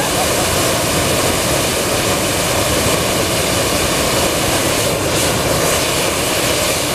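Hot-air balloon's propane burner firing in one long, steady, loud blast, heating the envelope for takeoff.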